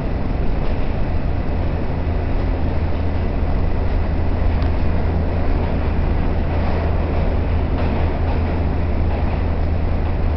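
R68 subway car running at speed through a station on the express track, heard from inside the car: a steady low rumble and hum with a few faint clicks from the rails.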